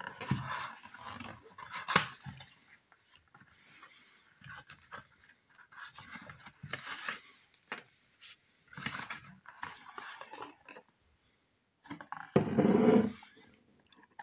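Cough syrup packaging being opened and handled: a run of rustles, scrapes and a few sharp clicks, with a louder rustle near the end.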